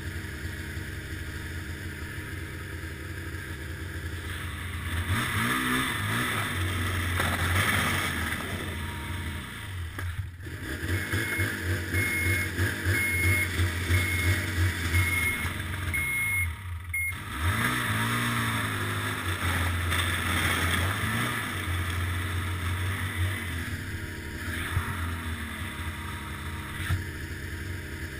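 Ski-Doo snowmobile engine running under the rider, revving up and easing off several times as it rides along. The sound cuts out briefly twice, about ten and seventeen seconds in.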